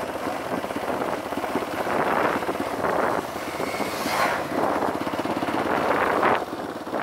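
Dirt bike engine running while riding, with swells of wind noise on the microphone and a brief drop in level near the end.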